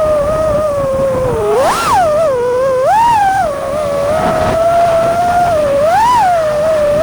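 FPV freestyle quadcopter's 2208 brushless motors and propellers whining as a steady tone. The pitch swoops up and back down three times, about two seconds in, at three seconds and near six seconds, with bursts of throttle.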